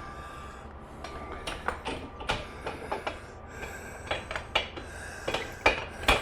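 Scattered metallic clinks and knocks of parts and tools being handled while a motorcycle's rear wheel is taken off, the loudest two near the end.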